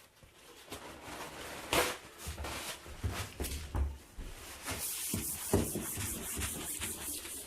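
Handling noise: rustling with scattered knocks and clicks, the loudest about two seconds in.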